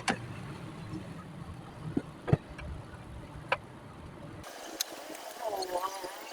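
Steady low electrical hum with a few sharp clicks and taps, as of small parts being handled. The hum stops abruptly about four seconds in, and faint wavering tones follow.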